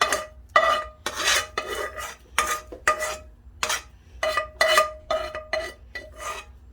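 A metal spoon scraping and knocking against a metal cooking pot in repeated strokes, about two a second, the pot ringing briefly after each.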